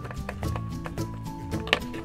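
Background music with held notes that change pitch every half second or so, over light percussive hits.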